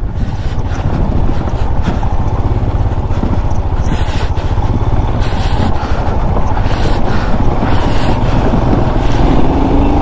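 Motorcycle engine running steadily while the bike rides over a rough, stony gravel track. Tyre and track noise mix in, with scattered short knocks from the bike jolting over stones.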